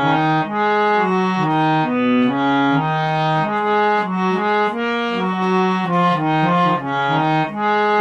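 Harmonium playing the bhajan's tune without singing: a melody of held reed notes, changing every half second or so, over lower sustained notes.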